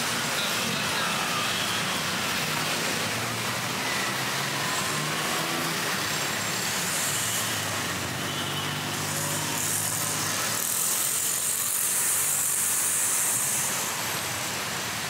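City road traffic: engines running and vehicles passing steadily, with a loud high hiss rising from about ten seconds in and fading a few seconds later.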